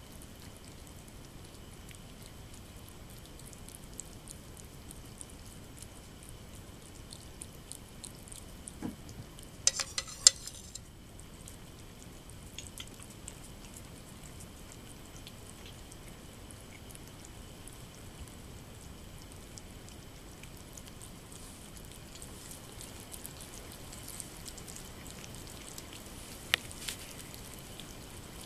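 Norwegian Forest Cat kittens eating soft weaning food from plates: faint wet clicks and ticks of lapping and chewing. About ten seconds in there is a brief, loud, high-pitched sound, and a single sharp click comes near the end.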